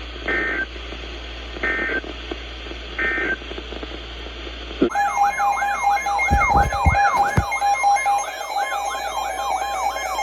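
Three short warbling data-burst chirps, about a second and a half apart: EAS digital end-of-message tones closing the weather alert. About five seconds in, an electronic siren-like alarm starts, wailing up and down two or three times a second over layered steady and stepping beeps, with a few low thumps.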